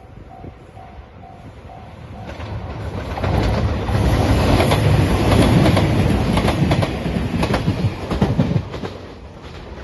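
A level crossing warning bell dings about twice a second for the first two seconds or so. Then a JR Shikoku 2700 series diesel express train passes, loud and close, its wheels clacking over the rail joints, and the noise falls away near the end.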